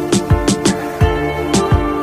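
Background music with a steady beat: deep drum hits and sharp high percussion over held notes.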